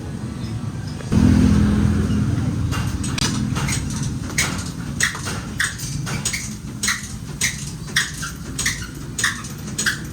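A low mechanical hum that grows suddenly louder about a second in, like a motor starting up and running. From a few seconds in, sharp taps repeat about twice a second.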